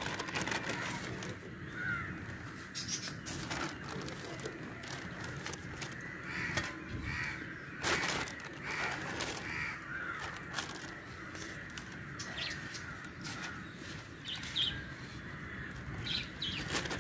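Crows cawing now and then over a steady outdoor hiss, with scattered sharp clicks and knocks.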